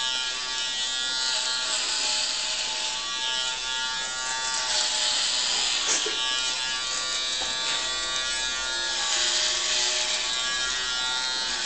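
Electric hair clippers with a comb attachment running steadily through a man's hair, a continuous buzz with a hiss that swells and fades.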